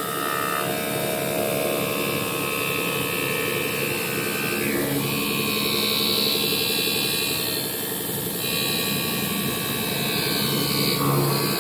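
CNC glass grinding and polishing machine running, its spindle and grinding wheel giving a steady mechanical drone with a high whine that jumps to a new pitch a few times as the grinding changes.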